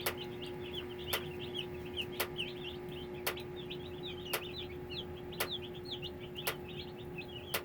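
A brood of chicks peeping softly and constantly: the contented chirps of chicks that are warm and comfortable, with no loud cries. A supplemental heater hums steadily underneath, and an electric fence charger clicks about once a second.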